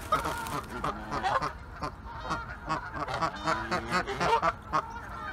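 Several geese honking, many short calls overlapping one another.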